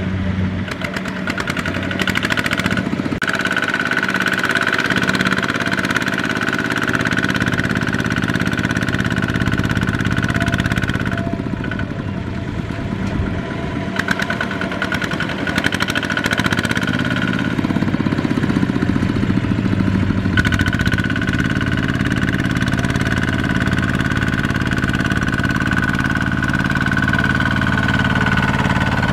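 Kubota ZT155 walking tractor's single-cylinder diesel engine running hard, pulling a loaded trailer through sticky mud while its mud-caked drive wheels churn and slip. The engine eases off briefly about halfway through, then pulls hard again, with a high steady whine over it that drops out twice.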